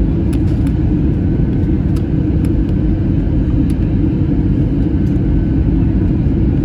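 Steady low rumble of an airliner's engines and rushing air, heard from inside the passenger cabin during a low-altitude approach, with a few light ticks on top.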